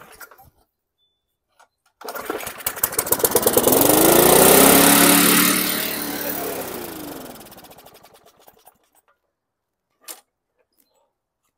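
2004 Murray push mower's Briggs & Stratton engine pull-started, catching at once and running up in speed, then slowing and dying out about seven seconds later. It runs with a worn-out stamped round muffler that the owner judges shot, rusting and falling apart.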